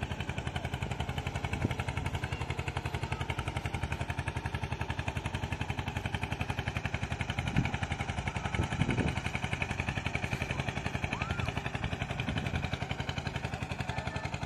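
Motorboat engine running steadily with a fast, even pulse.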